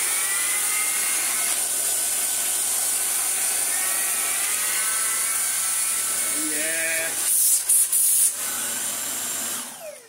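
Dyson DC49 cylinder vacuum cleaner with its digital motor running, a steady high whine and rush of air as its small turbo head works a rug. There are two louder rushes of air about seven and eight seconds in, and the sound cuts off just before the end.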